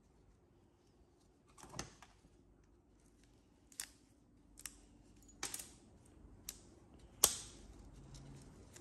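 Scattered sharp clicks and clacks of hand tools on small brass scrap pieces being worked apart, about six in all, the loudest near the end.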